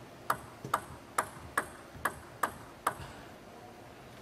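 Table tennis ball in a rally, bouncing alternately off the rackets and the table: seven sharp clicks a little under half a second apart. They stop about three seconds in as the rally ends.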